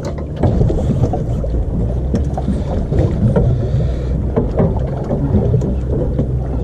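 Boat motor running with a steady low hum, with scattered knocks and clicks over it.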